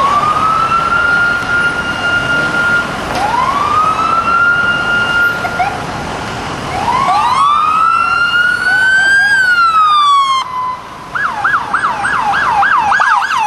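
NYPD police cruisers' electronic sirens on wail: long rising sweeps that hold a high note, twice overlapping as two cars sound at once, the last one falling away. Near the end a siren switches to a fast yelp of about four up-and-down sweeps a second.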